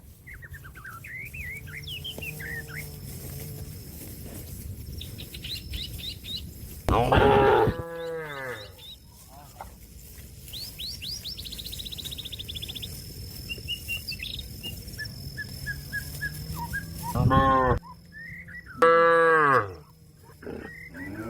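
Cattle mooing: long, low moos with three loud bellowing calls, a cow calling out to its herd mates. Birds chirp and trill in the gaps between the calls.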